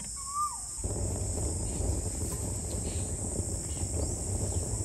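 Garden ambience: insects keep up a steady high drone, and a bird gives one short falling call near the start. About a second in, a low rushing noise sets in and stays.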